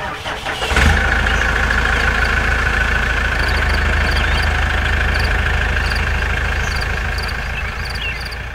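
An engine idling steadily and loudly, starting with a sudden hit about a second in, with a faint regular ticking over the low rumble.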